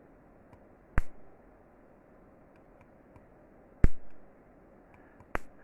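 Three sharp ignition spark snaps, well spaced, as the distributor is turned slowly by hand and the coil fires across the spark gap.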